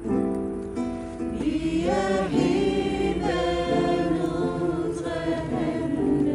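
A group of voices singing a Christian worship song together.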